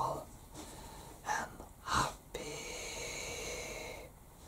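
A person breathing close to the microphone: two short, sharp breaths, then one long, steady breath lasting nearly two seconds.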